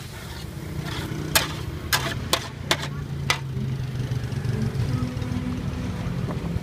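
Metal spatula clinking and scraping against a large iron frying pan while bean sprouts and noodles are stir-fried, five sharp clinks in the first half. A steady low engine-like hum runs underneath.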